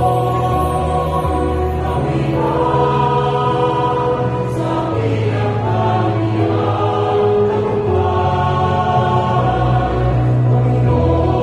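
A man and a woman singing a Tagalog psalm as a duet, over instrumental accompaniment with long held low notes.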